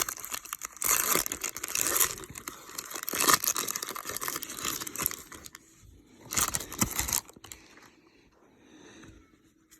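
A retail pack of baseball cards being torn open, its wrapper crinkling and tearing in repeated rustling bursts, with a last burst about six to seven seconds in before it goes quieter.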